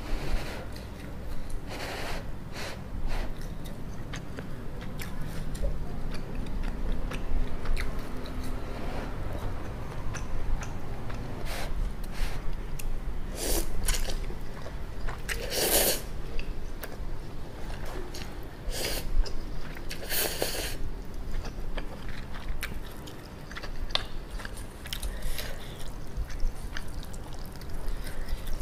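Eating Shin Ramyun instant noodles: chewing, with several short, loud noodle slurps, the loudest in the middle stretch.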